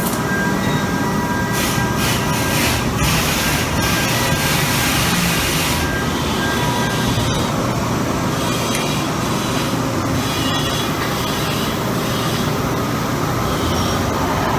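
Automatic pipe-welding system running on a pipe joint: the welding arc hisses and crackles over a steady, loud mechanical drone from the firing-line machinery.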